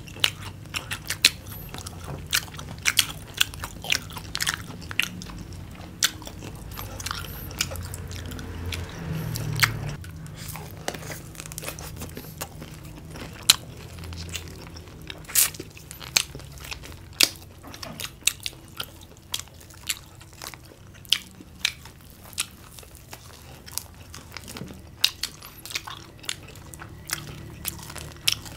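Crunchy battered fried chicken and fried vegetables being bitten and chewed by two people, a steady run of sharp, irregular crackles and crunches.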